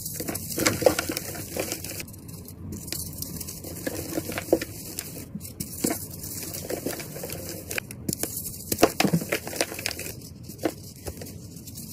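Star-shaped blocks of reformed gym chalk, dyed purple and coated in glitter, are crushed and crumbled between the fingers, giving irregular soft crunches and crackles. The loudest crunches come about a second in and about nine seconds in.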